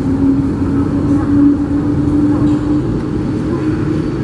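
Steady, loud apron noise from a Boeing 787 being pushed back by a tow tug: a low rumble with a humming tone that rises slightly in pitch and cuts off about three seconds in.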